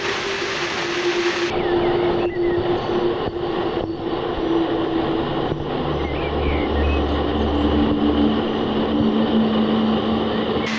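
Waterfall rushing: a loud, steady, even noise of falling water, with a faint steady low hum underneath that shifts pitch a few times.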